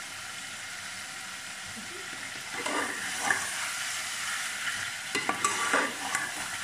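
Meat masala with freshly added yogurt sizzling as it fries in an aluminium pot. From about two and a half seconds in, a slotted spatula stirs and scrapes through it, with several sharp clicks against the pot.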